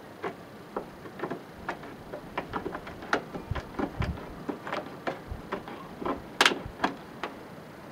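Aviation tin snips cutting a downspout outlet hole in a rain gutter: a run of short, irregular snipping clicks as the jaws close bit by bit around the traced outline, with one sharp, louder snap about six and a half seconds in.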